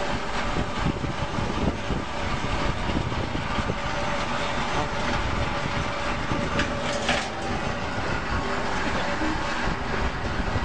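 Electric 918-KOB cable stripping machine running, its motor and feed rollers giving a steady rattling clatter as cable is fed through and slit.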